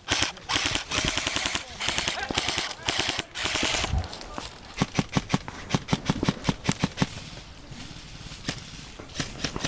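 Airsoft guns firing: rapid full-auto bursts of sharp clicks for the first few seconds, then a run of separate shots that thins out.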